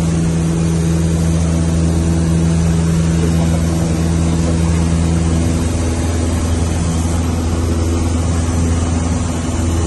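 Cessna 152's four-cylinder Lycoming O-235 engine and two-blade propeller droning steadily in flight, heard inside the cabin. The pitch of the drone shifts slightly about halfway through.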